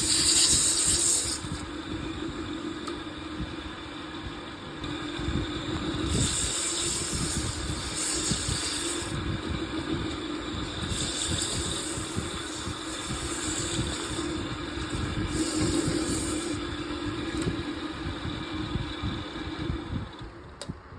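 Wood lathe running with a steady hum, with bursts of high-pitched hissing on and off over it. The hum fades out near the end.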